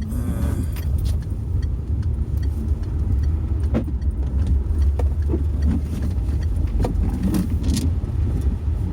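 Car driving along the road: a steady low rumble of engine and tyres, with a few light clicks and knocks here and there.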